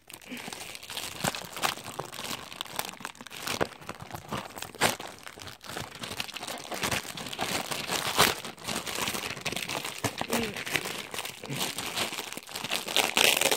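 Clear plastic toy packaging crinkling and crackling as it is handled and opened by hand, in irregular bursts with a few louder snaps.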